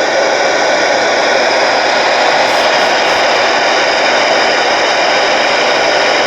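Steady, loud static hiss from a President Andy CB radio's speaker on channel 19 after the mic is unkeyed, with no station coming back.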